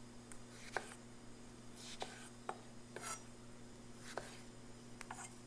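Kitchen knife cutting strawberries on a wooden cutting board: about six light knocks of the blade meeting the board, spaced irregularly a second or so apart, some with a short swish of the cut.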